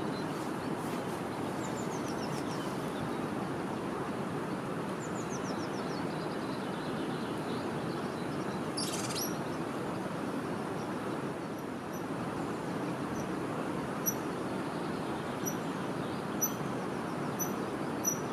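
Steady rushing outdoor noise with high chirping calls over it: two quick falling trills about a second and five seconds in, a sharper call about halfway, and a run of short high chirps near the end.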